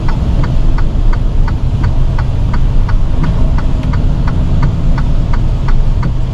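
Semi truck's diesel engine running steadily at low speed, with the turn signal clicking about three times a second.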